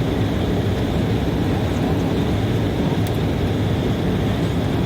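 Steady cabin noise inside a KLM Embraer E190 in flight: the even rush of air and the low hum of its twin turbofan engines.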